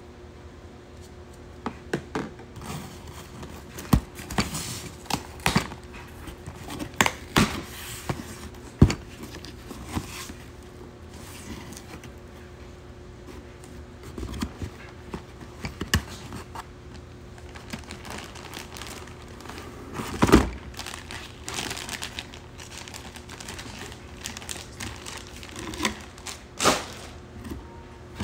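A cardboard shipping box being opened and unpacked by hand: packing tape tearing, flaps and smaller boxes knocking and scraping, and plastic packaging crinkling. The sounds come as irregular sharp knocks and short rustles, one louder knock about twenty seconds in.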